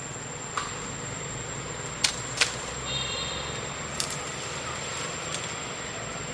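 Forest background with a steady high-pitched whine and hiss, broken by a few sharp clicks or snaps (two close together about two seconds in, another about four seconds in) and a brief high chirp around three seconds in.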